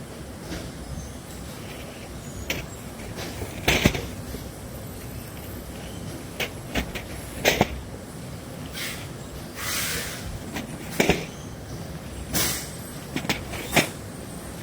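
Glass vials and their packaging being handled: irregular sharp clicks and taps, with a few brief rustles or scrapes.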